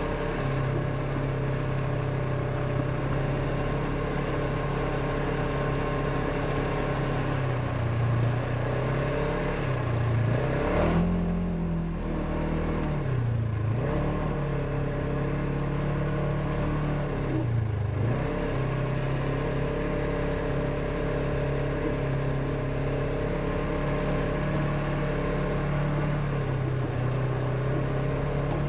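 Polaris RZR 1000 side-by-side's engine running at steady revs while driving, its pitch dipping and climbing back up about four times in the middle stretch.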